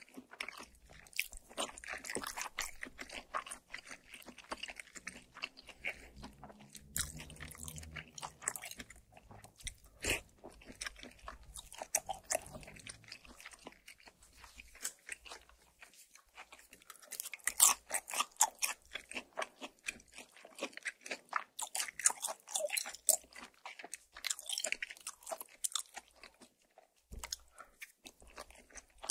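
Close-miked chewing of food: irregular crisp crunches and wet mouth sounds, bite after bite, with the sharpest crunches a little past the middle.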